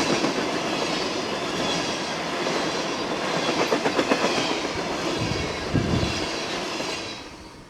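Freight train of tank cars rolling past close by, wheels clicking and clattering over the rail joints. The sound drops away sharply near the end.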